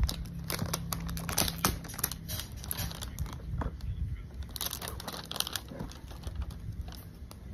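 Glossy plastic toy packaging crinkling and rustling as a Zuru Smashers Dino package is handled and peeled open, with irregular crackles that grow louder about five seconds in.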